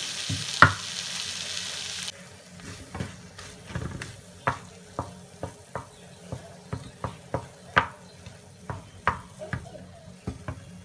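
A wooden spatula stirring and scraping a fried onion and tomato mixture around a non-stick frying pan, with sharp taps and scrapes about twice a second. The frying sizzles at first, and the hiss cuts off suddenly about two seconds in.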